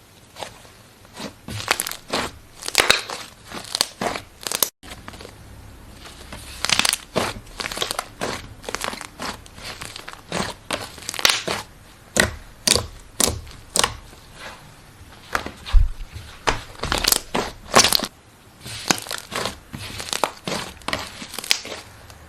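Slime being squeezed and pressed by hand, giving an irregular run of sharp crackles and pops, briefly broken off near the start.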